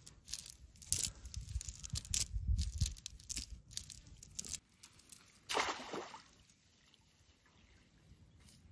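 Water sloshing and splashing in a shallow river, with scattered clicks and knocks in the first few seconds and one louder splash a little over five seconds in.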